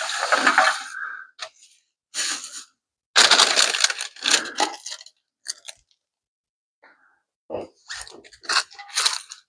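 Rustling and clattering of objects being handled and moved about, in several irregular bursts with short quiet gaps between them. It sounds like someone rummaging through things while searching for a small part.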